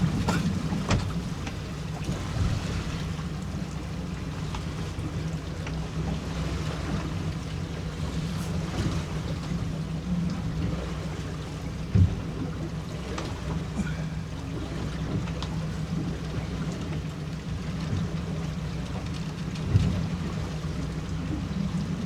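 Small boat's outboard motor running steadily, with wind and water noise and a couple of sharp knocks.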